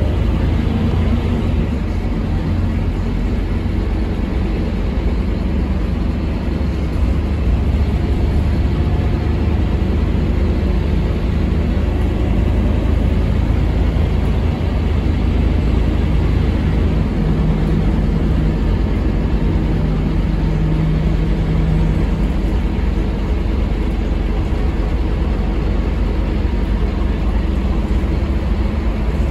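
Scania DC9 five-cylinder diesel of a Scania K230UB bus running, heard from inside the passenger cabin as a steady, low rumble. The engine note shifts in pitch partway through.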